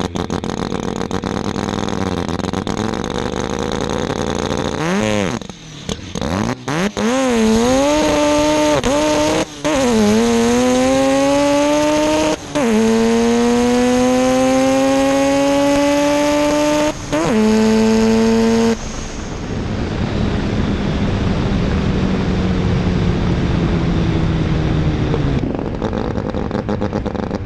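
Mazda RX-7 drag car's engine idling at the start, then launching about five seconds in with a stuttering, wavering rev. It then pulls hard through three upshifts, the pitch climbing in each gear and dropping at each shift. About nineteen seconds in it lifts off the throttle and coasts down with a lower, fading engine note.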